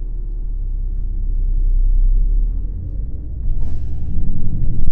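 City bus engine rumbling steadily, heard from inside the bus and swelling about two seconds in, with a short hiss about three and a half seconds in.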